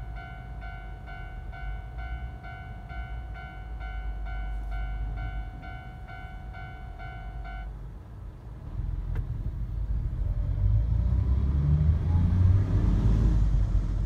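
Level-crossing warning bell ringing, a repeated electronic ding at about two strokes a second, which stops about eight seconds in as the crossing clears. Then a low rumble of heavy road traffic moving off builds and grows louder toward the end.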